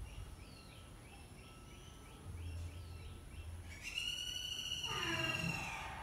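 Birds calling: a quick series of short, high, rising chirps, about three a second, then a loud high call held for about two seconds that falls away in pitch as it ends.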